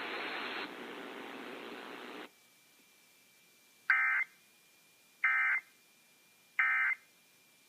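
Broadcast hiss that cuts off about two seconds in. Then three short, identical bursts of warbling data tones come about 1.3 seconds apart: the EAS SAME digital end-of-message code that closes the alert test.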